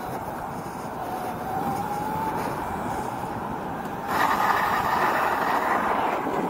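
Prototype electric go-kart under way: a thin electric-motor whine rising in pitch as it accelerates, over tyre and road noise. About four seconds in, a louder, rougher noise sets in as the kart swings through a turn.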